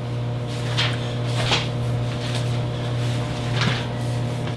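Wooden rolling pin rolled over biscuit dough on a plastic pastry mat: three short rolling strokes over a steady low hum, then a sharp click at the very end.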